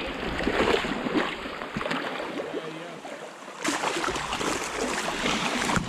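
Sea water washing and churning against the rocky shoreline. It eases for about a second around the middle, then surges back abruptly.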